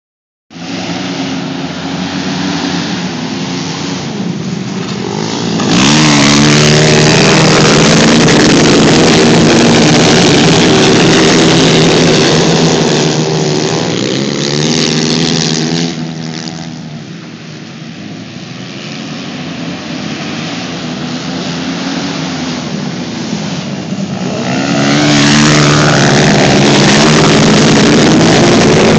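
Dirt-bike engines racing around a flat-track dirt oval, revving continuously. The sound swells, with the engine pitch rising as bikes accelerate past, about six seconds in and again near the end. It eases off in between.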